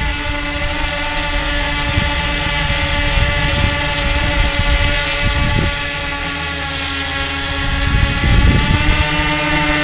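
The two electric-motor wingtip propellers of a bicopter VTOL RC airplane whining steadily in hover, with several pitches held together. Wind buffets the microphone, most strongly about eight seconds in.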